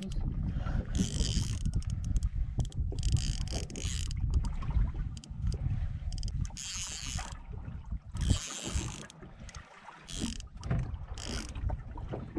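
Conventional fishing reel being cranked to reel in a hooked fish, its gears whirring in repeated spurts, over a steady low rumble.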